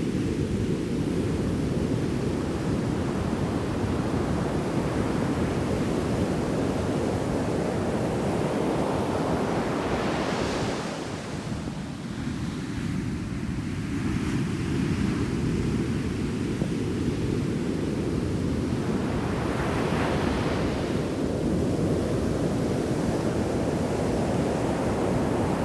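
Ocean waves breaking in a heavy shore break, with wind rumbling on the microphone throughout. Several waves crash and wash up the sand with a hiss, clearest about ten seconds in and again around twenty seconds.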